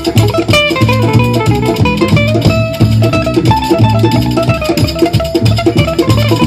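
Fast plucked-string music, most likely guitar, in a Romanian gypsy style: a quick, fluttering run of melody notes over a repeating bass line.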